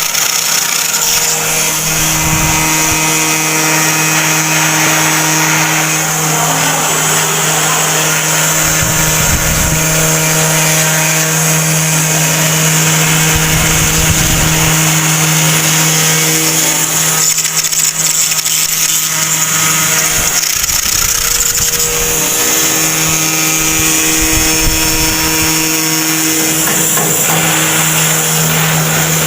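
Mini CNC router's spindle running and cutting: a steady motor hum under a continuous hiss of cutting noise, lighter for a few seconds in the middle.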